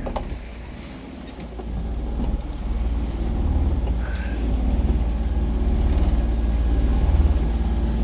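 Catalina 30 sailboat's engine running steadily under power, a low drone, with wind and choppy water noise over it.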